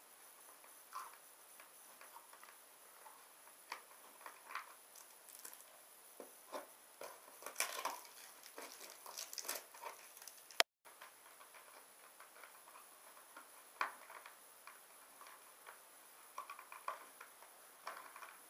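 Faint handling noise of a cardboard box being opened by hand: clear packing tape crinkling and peeling, with scattered small clicks as the flat metal fastener tabs are worked loose. It gets busier and more rustly about seven to ten seconds in, and the sound cuts out for a moment a little past halfway.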